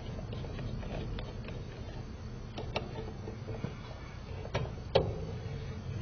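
Screwdriver working the terminal screws of an air-conditioner condenser contactor as its wires are taken off: scattered sharp metal clicks and taps, the loudest about five seconds in, over a steady low rumble.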